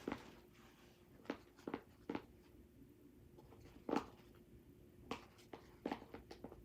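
Light clicks and knocks of slime-making supplies being handled, about eight short taps spread through, the loudest about four seconds in, over a faint steady hum.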